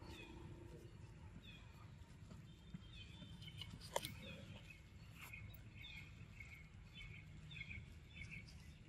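Faint outdoor ambience: small birds chirping in short, repeated falling notes over a low rumble, with a sharp click about four seconds in.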